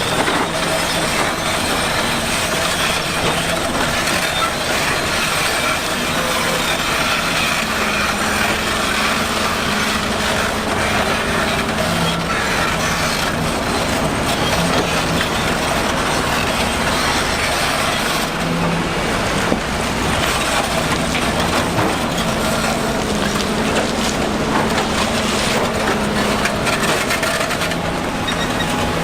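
Heavy construction machinery working: a diesel engine running steadily under a continuous rattle and clatter.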